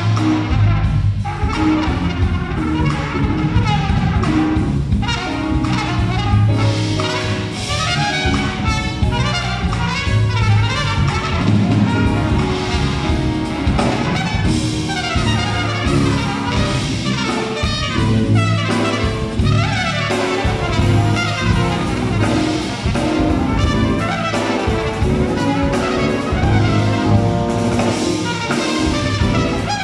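Jazz-fusion quartet playing live and loud: trumpet out front over keyboards, electric bass and drums.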